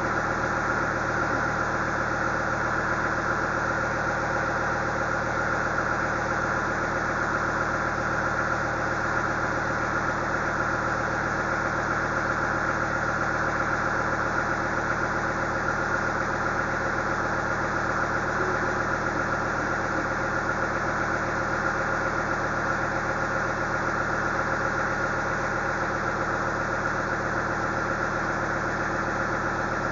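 Engine of a bucket loader idling steadily, with an even, unchanging note.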